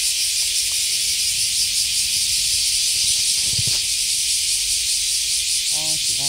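Steady chorus of cicadas, a dense high hiss with a faint rapid pulse, and a brief low thump about three and a half seconds in.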